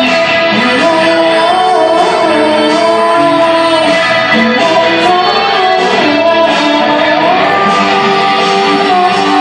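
A live band playing loudly, with a sung melody over guitar.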